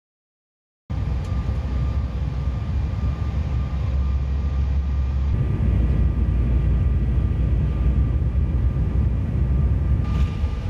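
Steady, loud rumble of a jet airliner heard from inside the cabin at a window seat, as the plane comes in low over the airport and then moves along the runway. It begins after about a second of silence, and its tone shifts slightly about five seconds in.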